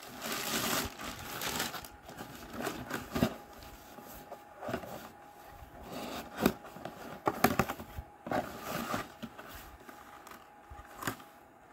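Handling of packaging: a plastic mailer bag crinkling as it is pulled off a cardboard box, then cardboard box flaps opened with scattered scrapes and taps, and the plastic bag around a filament spool rustling near the end.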